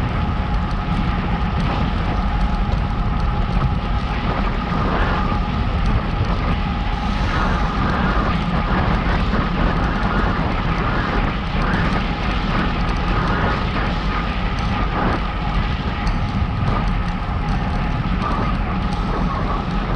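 Steady wind rumble on the microphone of a moving rider, with a constant hum from the ride underneath it.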